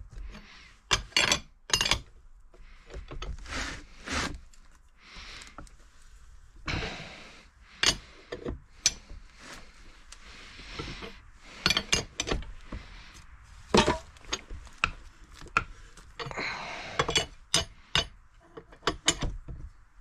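Metal tools clinking and scraping as a wrench turns a crank installer tool, drawing a crankshaft into an AF05 scooter engine case. Irregular sharp clinks and knocks throughout, with two longer scrapes, about 7 seconds in and again near 16 seconds.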